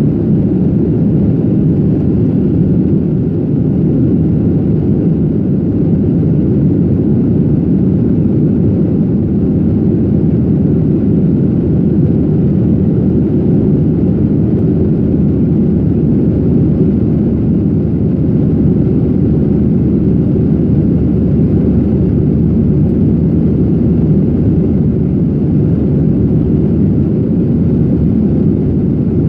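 Jet airliner cabin noise during the climb after takeoff: a steady, loud drone of the engines and rushing air, heard from inside the cabin.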